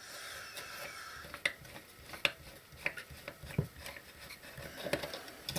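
Light metallic clicks and scraping as a last small screw is worked out and handled inside an aluminium equipment box.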